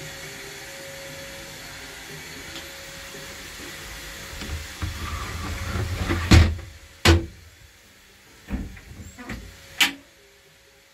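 A fibreglass boat console's door and hatch being handled, giving several sharp knocks and clunks over a steady hiss.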